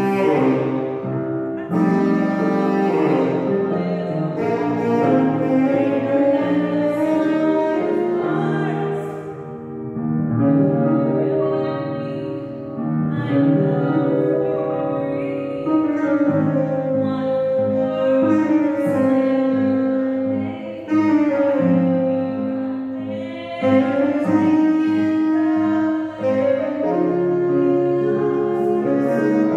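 Saxophone playing a slow melody of held, sliding notes over piano accompaniment.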